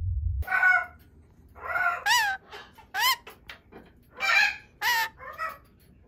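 A parrot calling: about seven short squawks and rising-then-falling whistled notes, separated by brief pauses.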